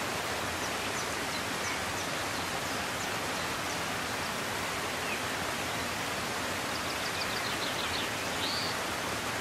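River water rushing steadily, with a few faint high chirps over it.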